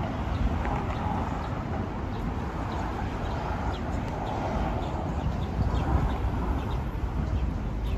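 Street ambience: a steady low rumble of city traffic, with short high bird chirps scattered through, more often in the second half.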